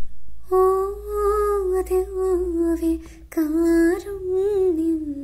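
A woman singing a wordless vocalise with no accompaniment, in two long held phrases, the second drifting slowly downward.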